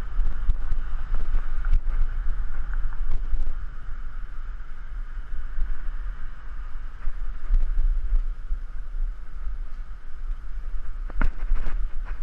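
Wind buffeting the microphone of a bicycle-mounted action camera while riding, a steady low rumble with an uneven level. A couple of sharp clicks near the end.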